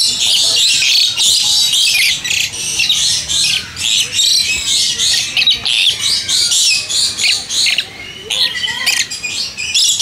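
A flock of parrots squawking and chattering without pause, a dense stream of short, high-pitched calls.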